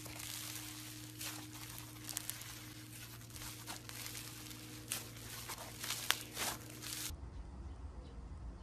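Fluffy, textured slime being squeezed and pulled apart by hand, making a crackling, tearing sound with many small sharp pops. About seven seconds in the crackling stops and a quieter clip begins.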